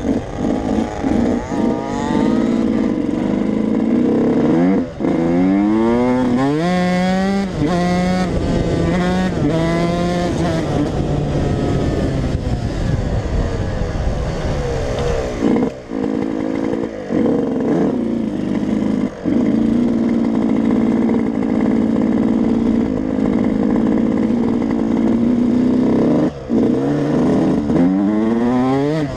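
Yamaha YZ125 two-stroke single-cylinder dirt bike engine being ridden hard, its pitch climbing repeatedly as it revs up through the gears. Short throttle cuts come a handful of times, and it holds a steady pitch in between.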